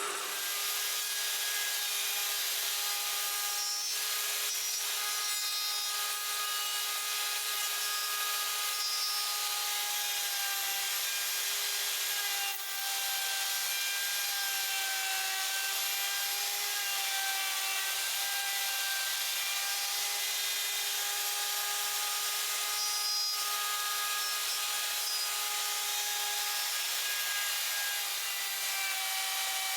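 An electric power tool working wood, running steadily with a faint motor whine over a continuous rasping noise, with two brief dips.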